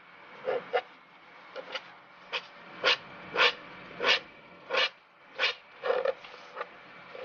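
A steel dip-pen nib scratching across paper in short inking and hatching strokes, about a dozen quick scratches spaced roughly half a second to a second apart, the loudest in the middle.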